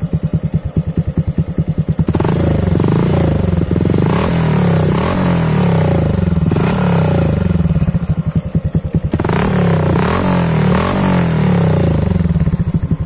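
Honda Dash 125fi's single-cylinder four-stroke engine through an Espada aftermarket exhaust with an open, stopper-less silencer, bassy in tone. It idles in steady pulses, is revved in a string of throttle blips from about two seconds in, eases off briefly, is revved again, and drops back to idle near the end.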